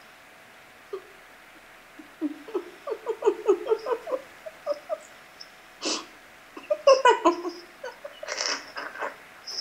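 Laughter: giggling in short rapid pulses begins about two seconds in and grows into fuller laughing with breathy bursts.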